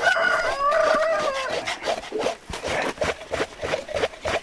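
Rapid, repeated rasping scrapes of metal cans against the singed, blackened hide of a pig carcass, scraping off the burnt bristles. A person's voice calls out over the scraping for about the first second and a half.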